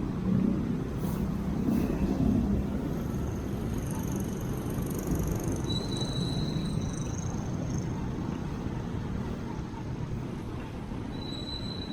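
Street traffic: a steady low rumble of motor vehicles running by, with an engine hum that stands out in the first couple of seconds. Thin high tones come and go in the middle and again near the end.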